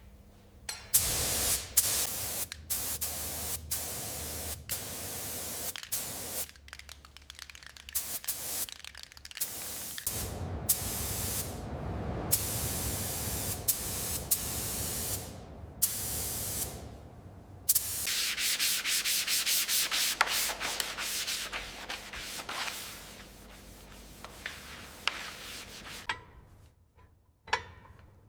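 Sanding on a motorcycle part, in stretches that stop and start with short pauses, then a steadier, finer rubbing past the middle that fades to a few light taps near the end.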